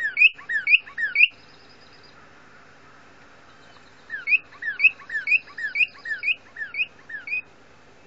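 Female northern cardinal song played from a computer: repeated clear slurred whistles. One run of notes ends about a second in, and a second run starts about four seconds in, going at about three notes a second.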